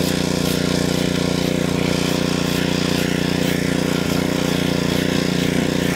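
A gas pressure washer's small engine running steadily at a constant speed.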